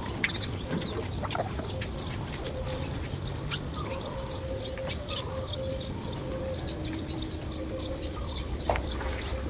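Small birds chirping rapidly and repeatedly, with chickens clucking and a faint steady hum underneath.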